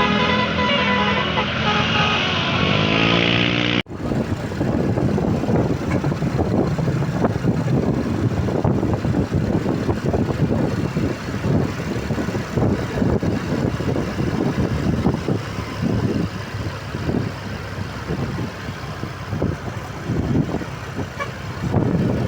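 A telolet basuri multi-tone bus horn playing a tune in stepped notes that ends in a falling glide, cut off suddenly about four seconds in. After that comes steady road traffic noise of engines and tyres.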